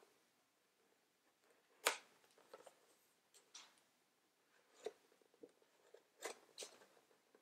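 Scissors cutting the packing tape on a product box: a scattered series of short snips and scrapes, the sharpest about two seconds in.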